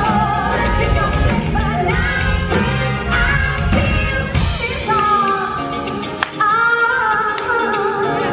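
Live pop-rock band with lead singers performing: sung melody over guitar, drums and bass. About halfway through, the drums and bass drop back, leaving the voices over lighter backing.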